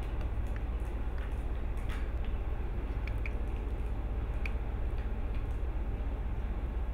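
A steady low hum with faint, scattered small clicks and ticks, cats shifting against a plastic basket.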